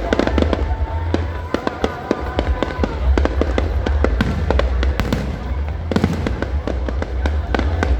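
Aerial fireworks going off in quick, irregular succession: many sharp pops and crackles, with a steady low rumble beneath.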